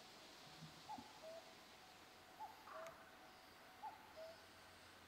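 A faint bird call of two notes, a short higher note then a slightly lower one, given three times about a second and a half apart over quiet background hiss.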